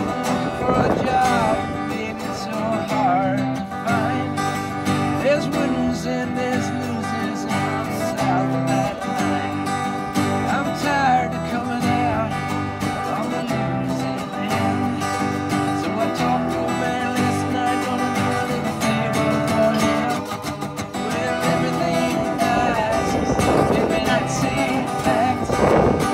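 Acoustic folk trio playing an instrumental passage: harmonica over strummed acoustic guitars and mandolin, in a steady country-style groove.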